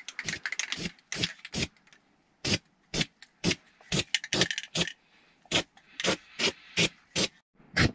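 Aerosol can of spray primer being shaken, the mixing ball rattling inside in sharp strokes about two a second with a few short pauses, to mix the primer before spraying.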